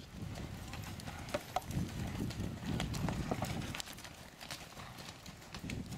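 Horses cantering over soft stubble ground after jumping a hedge bank, their hooves landing in a run of dull thuds.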